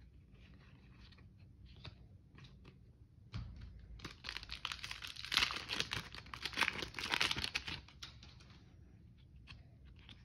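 Clear plastic wrapper of a trading-card pack being torn open and crinkled: a dense crackle for about four seconds in the middle. Soft clicks and rustles of cards being handled come before and after it.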